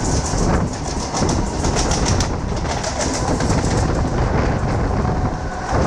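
Busy Mumbai suburban railway station ambience with a local train moving along the platform: a steady dense rumble with rapid, high chirping over it.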